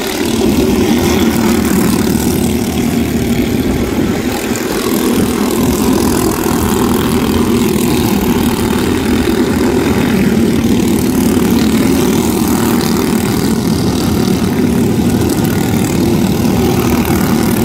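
Engines of several small open-wheel race cars running together as they lap a dirt oval, a continuous loud engine drone that swells and eases slightly as the cars pass.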